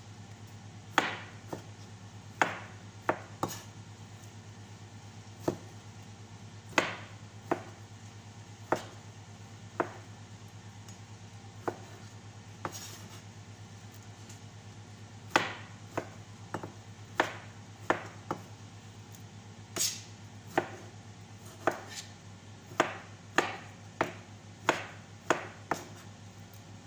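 Kitchen knife chopping tomatoes: irregular sharp knocks of the blade striking the cutting surface, sometimes two or three in quick succession, with pauses between runs.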